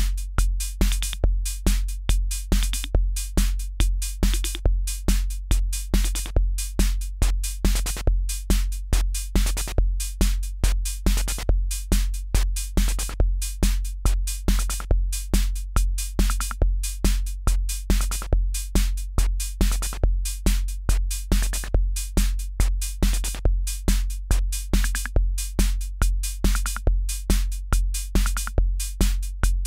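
Akai Rhythm Wolf analog drum machine playing a steady looped beat: a deep kick about twice a second, with hi-hat ticks and short pitched notes between the kicks.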